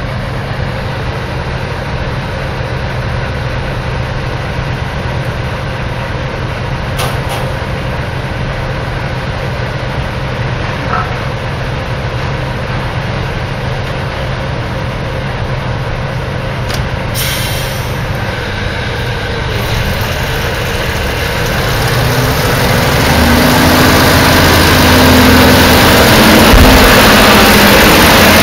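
Small diesel shunting locomotive's engine running as it moves slowly with its wagons, a steady low hum that grows louder over the last several seconds as it draws close and passes.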